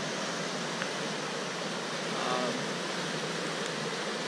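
Muddy floodwater rushing steadily down a normally dry riverbed in flash flood: an even, unbroken wash of water noise.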